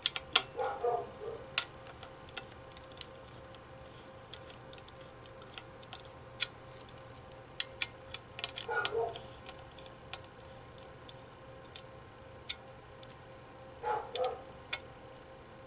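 Scattered light clicks and taps of a hard drive, its mounting rails and screws being handled and fitted into a desktop PC, with three short louder bouts of handling noise: about half a second in, near the middle and near the end.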